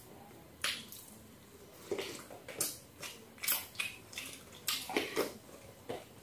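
Eating sounds: irregular wet smacks and clicks of chewing and lip-smacking, about ten short sounds with brief pauses between.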